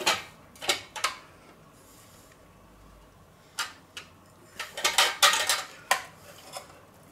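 Metal clicks and clinks of a rotisserie spit fork being worked onto the spit in a chicken, metal striking metal and the stainless steel roasting pan. A few clicks at the start, a short quiet pause, then a quick run of clinks in the second half.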